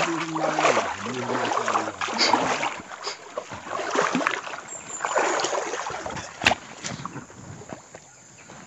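Wading through knee-deep floodwater in a forest stream: water sloshing and splashing with each step while branches and leaves rustle against the body, quieter near the end, with one sharp snap or knock about six and a half seconds in.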